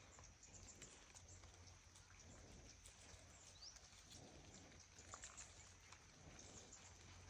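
Near silence: a faint steady low hum with a few soft ticks.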